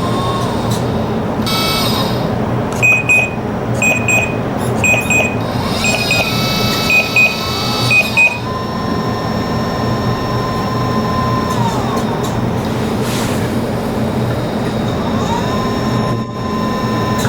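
RC hydraulic excavator running, its pump a steady hum under a whine that rises, holds and drops back twice. A run of short, high electronic beeps sounds from about three to eight seconds in.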